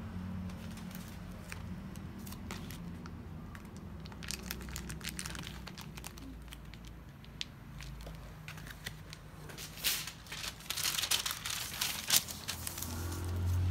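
Paper and plastic packaging being handled and crinkled, with scattered crackles that become a dense spell of crinkling from about ten seconds in as a sheet of white wrapping paper is handled. A low steady hum lies underneath.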